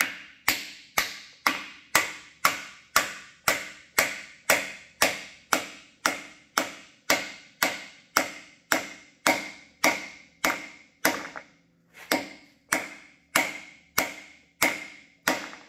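A hammer repeatedly striking a rod through a stacked-nylon driver disc, pounding an axle bushing into the axle bore of a PistenBully 400 Park snowcat. The blows come steadily at about two a second, with a brief pause about twelve seconds in. From about nine seconds on, each blow rings.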